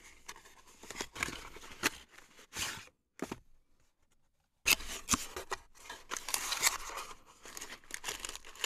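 Cardboard packaging being handled and opened: a printed sleeve slid off a small cardboard box and the box lid opened, giving short bursts of scraping and rustling with about a second of silence midway.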